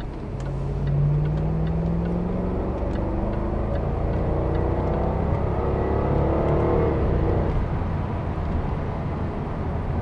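2013 Jaguar XKR's supercharged 5.0-litre V8 accelerating, heard from inside the cabin: the engine note rises in pitch in two pulls, then eases off about seven seconds in.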